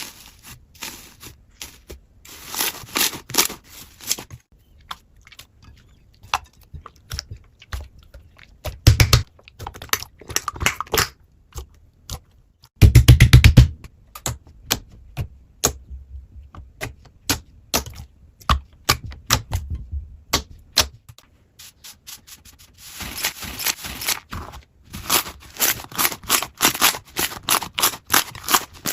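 Slime being squeezed and worked by hand, giving rapid sticky clicks and pops in bursts; the densest bursts come a few seconds in, around a third of the way through, and again near the end.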